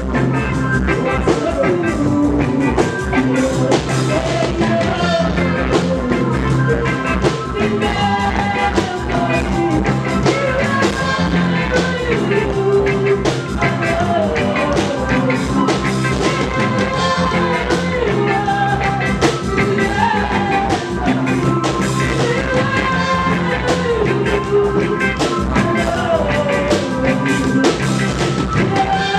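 Live reggae band playing, a singer's voice over a steady drum beat, bass and guitar.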